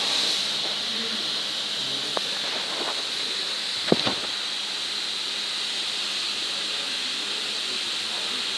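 A few light metallic clicks as a front brake caliper and its pads are handled, the sharpest about four seconds in. A steady high hiss runs underneath.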